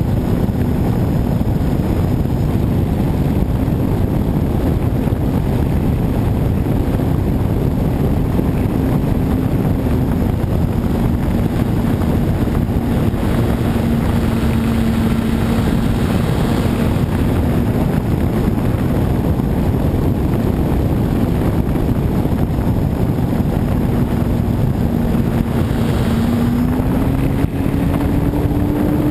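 Model airplane's motor and propeller running at a steady pitch with heavy wind rush over the wing-mounted camera. The pitch rises near the end as the throttle is opened.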